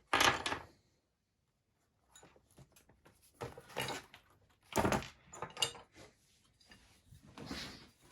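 Handling noises as something is rummaged for and brought out: a few short scrapes and knocks, with a drawer or container being opened and shut.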